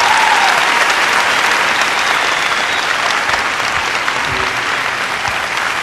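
Large audience applauding steadily, with dense clapping that holds at an even level.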